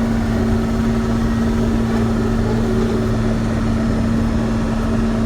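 A large engine running steadily at constant speed, a loud even hum with no change in pitch.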